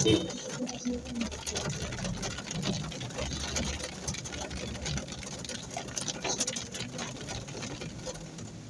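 A car engine running under heavy rain, with a dense, rapid ticking of raindrops on the car; a sharp knock right at the start is the loudest sound.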